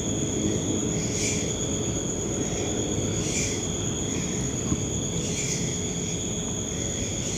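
Night insects, crickets, trilling as a continuous high-pitched drone, with a louder pulse of chirping about every two seconds. A low rumbling hiss runs underneath.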